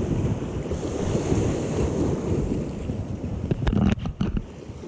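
Wind buffeting the microphone over waves washing against shore rocks, with a few sharp clicks about three and a half to four seconds in.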